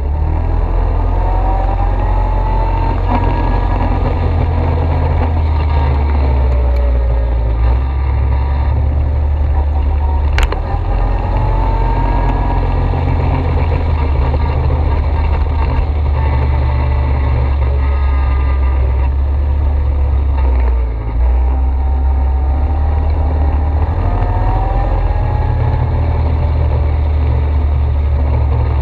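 ATV engine running under way, its pitch rising and falling every few seconds as the throttle is worked. There is one sharp knock about ten seconds in.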